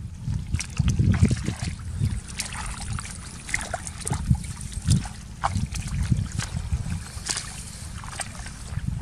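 Boots squelching through wet mud and hands rummaging in muddy grass, with many small wet clicks and splashes over a low, uneven rumble.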